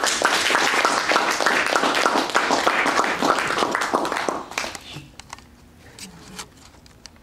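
Audience applauding: dense clapping that dies away about four and a half seconds in, leaving a few scattered claps.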